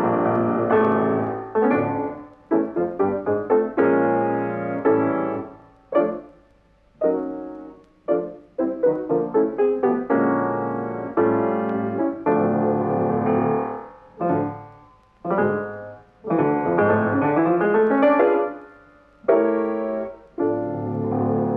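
Piano music: phrases of struck notes and chords that ring and fade away, with several short breaks between phrases.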